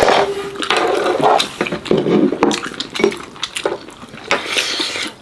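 Chopsticks and spoons clinking and scraping against bowls and dishes as people eat, in a run of short, uneven clicks.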